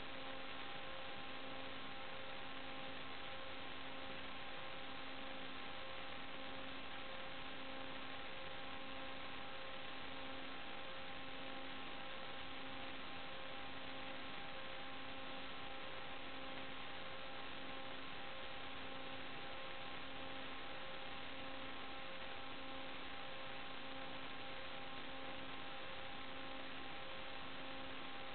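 Steady electrical hiss and hum with several fixed whining tones, the lowest one pulsing on and off a little under once a second: noise on the audio channel of a drone's analog FPV video feed rather than any live sound.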